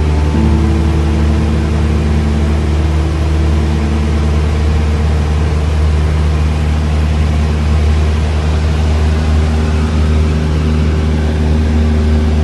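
Cabin noise of a Cessna 172 in cruise flight: the piston engine and propeller make a loud, steady drone.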